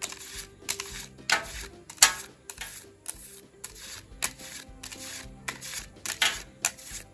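Pokémon trading cards being slid and flicked off a hand-held stack one after another: sharp papery snaps about twice a second, the loudest about two seconds in, over background music.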